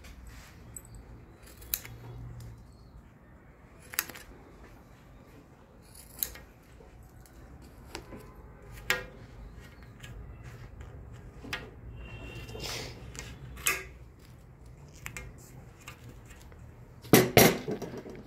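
Large steel scissors snipping velvet fabric, heard as sharp separate clicks every two seconds or so, with a louder double knock near the end.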